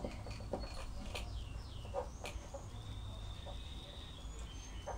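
Dry-erase marker on a whiteboard while writing: the tip taps a few times and gives short high squeaks that slide down in pitch. About three seconds in, one longer steady squeak runs through a long stroke.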